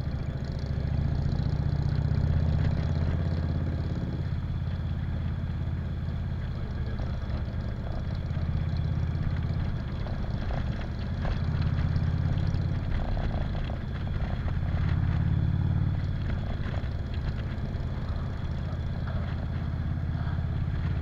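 Cruiser motorcycle engine running under way, heard from the rider's seat. Its note swells and eases several times as the throttle is opened and rolled off.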